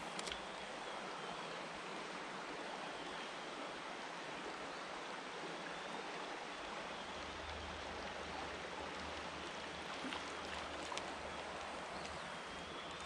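A creek running: a steady rush of water, with a few faint clicks.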